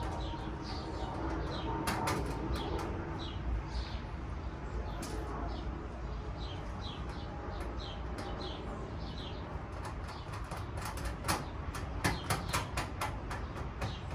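A small bird chirping over and over in short, falling notes. Sharp clicks and taps come now and then and bunch up quickly near the end.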